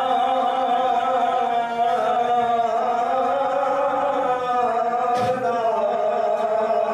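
A man chanting a Shia marsiya (Urdu elegy) solo, holding one long, slightly wavering note for the whole stretch.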